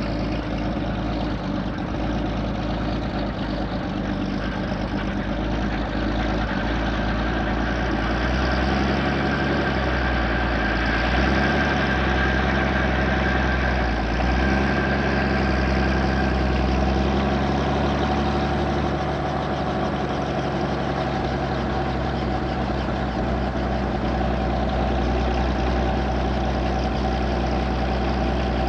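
Robinson R44 helicopter's six-cylinder Lycoming piston engine running steadily at low power on the ground while the main rotor turns slowly, the warm-up after start-up. The engine pitch shifts a little in the middle.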